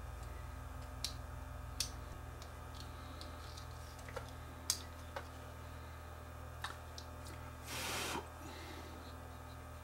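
Small plastic viewfinder parts clicking and tapping as they are handled and fitted together: a handful of light, separate clicks, then a brief scraping rustle about eight seconds in.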